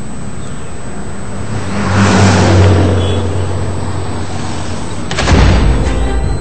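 A road vehicle passes, its noise swelling and fading over a low drone. About five seconds in, a heavy boom opens loud dramatic theme music with a pounding beat.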